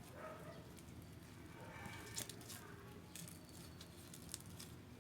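Faint, scattered sticky clicks and squishes of hand-kneaded slime being worked together with lotion; the slime is still stiff and has not yet softened.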